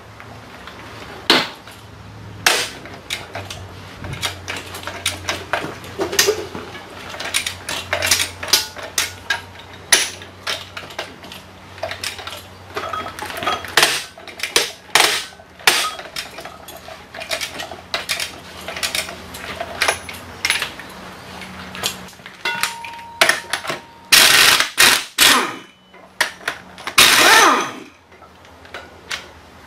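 Socket ratchet clicking and steel tools clinking while the bolts of a pillow-block bearing cap are loosened. Near the end come two short bursts of an impact wrench hammering on a cap nut.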